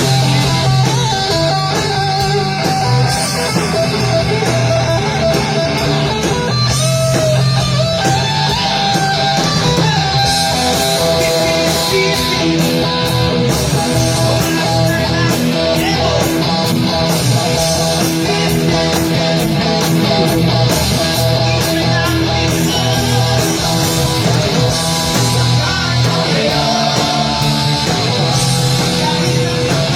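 Live rock band playing an instrumental stretch: electric guitar lines over bass and a steady drumbeat with cymbals.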